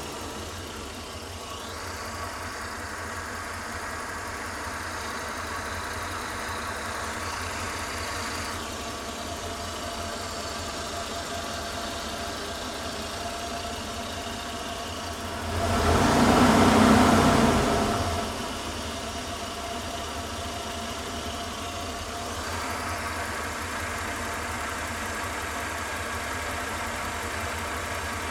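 Van engine idling, heard from inside the closed cabin, the idle the owner asks about as a possible misfire. About sixteen seconds in it briefly gets much louder for about two seconds, then settles back to the steady idle.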